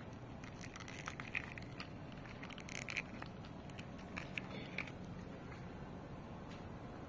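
Hands handling plastic, making scattered light clicks and crackles, mostly in the first few seconds.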